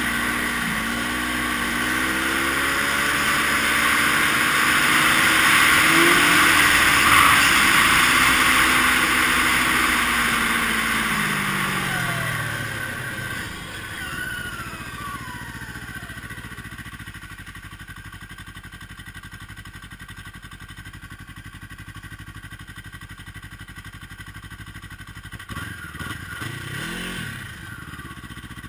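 Yamaha snowmobile engine running under way, its pitch wavering up and down over a steady hiss for the first dozen seconds. The pitch then falls as the sled slows, settling into quieter low running, with a brief rev rising and falling near the end.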